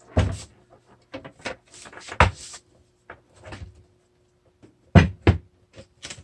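Several separate knocks and clunks as the Onewheel Pint's wheel is worked and seated back into its frame. The loudest comes about two seconds in, and two close together come near five seconds.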